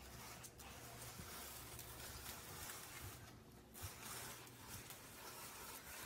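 Faint crinkling and rustling of a paper bag as a small dog noses around inside it.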